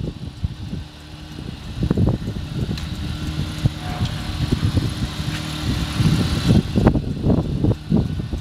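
Mitsubishi Minicab U15T kei truck's small engine idling steadily, with irregular low rumbling gusts over it.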